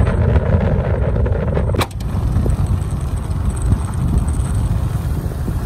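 Motorbike riding: heavy wind buffeting on the microphone over the running engine, with a short click about two seconds in where the level drops slightly.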